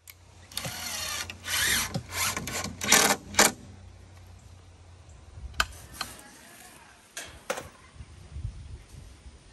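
Building-work noises on a wooden coop: several short, loud bursts of tool and handling noise in the first three and a half seconds, then scattered clicks and knocks.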